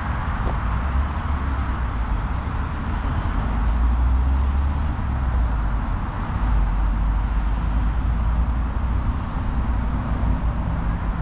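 Steady road-traffic noise from vehicles on a motorway roundabout: a constant hiss with a deep rumble that swells and eases.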